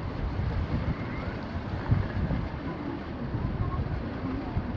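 Wind rumbling on the microphone, a steady low buffeting, with one brief louder low thump about two seconds in.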